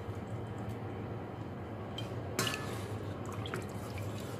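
Soup broth sloshing and dripping as a spatula stirs it in a stainless steel pot, with one sharp knock about halfway through, over a steady low hum.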